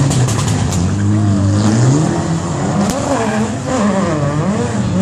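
Rally car engine revving hard as it takes a street corner, its pitch climbing and dropping several times with throttle and gear changes. A few sharp cracks sound in the first second.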